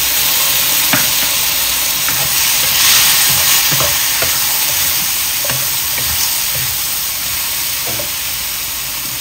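Shrimp sizzling hard in freshly added sauce in a nonstick wok as they are stir-fried, the spatula scraping and tapping against the pan now and then. The sizzle is loudest about three seconds in, then slowly eases as the sauce cooks down.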